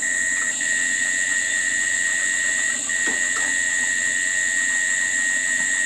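Crickets trilling without a break: a steady shrill sound at two high pitches.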